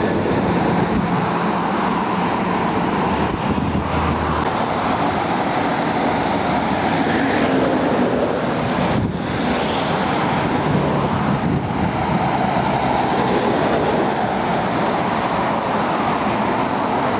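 Heavy trucks, among them a Scania, driving past one after another at close range: diesel engines running and tyre noise on the road, over steady traffic.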